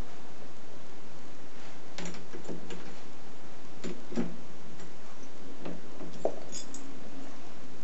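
Irregular light metallic clicks and taps as a small workpiece is fitted into a four-jaw lathe chuck and the jaws are worked with a chuck key. The clicks begin about two seconds in and come every half second or so, the sharpest a little past four and six seconds in.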